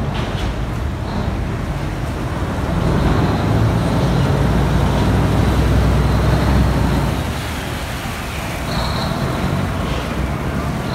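Engine of a long canal passenger boat running loudly as the boat moves alongside the pier, a deep rumble that swells for a few seconds in the middle and then eases. A short high tone sounds about nine seconds in.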